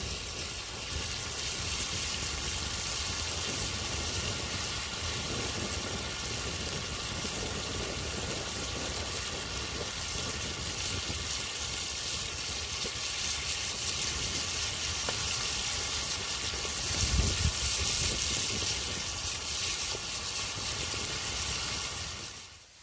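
Falafel frying in hot oil: a steady sizzle that swells for a couple of seconds about three-quarters of the way through, then falls away suddenly near the end.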